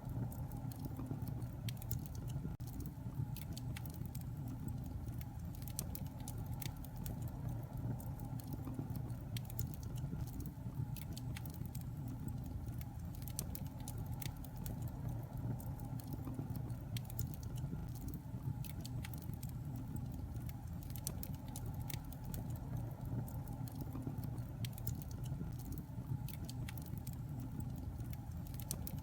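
Wood fire burning in a fireplace: a steady low rumble of flames with frequent irregular sharp crackles and pops.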